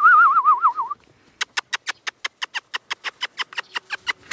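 A person whistling a warbling call, then making a fast, even run of kissing clicks, about nine a second, to call a puppy.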